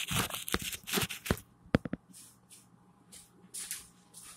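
A phone being handled right at its microphone: a quick run of rubbing, scraping and small knocks for about a second and a half, then only a few faint rustles.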